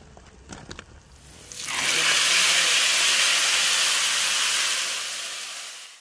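Hot tadka (oil with dried red chillies and cumin) poured onto kadhi, sizzling loudly, starting about a second and a half in after a few faint clicks, easing slightly near the end and cutting off suddenly.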